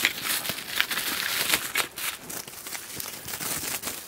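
Plastic bubble wrap crinkling and rustling as it is handled and pulled out of a cardboard mailer box, in a run of quick crackles.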